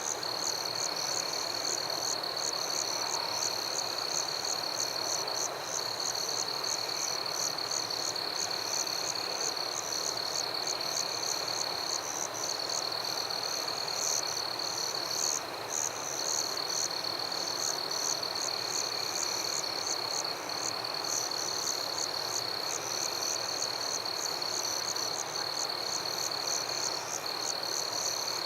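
Night chorus of frogs and insects: a steady high trill runs throughout, with high chirps repeating a few times a second above it over a soft background hiss.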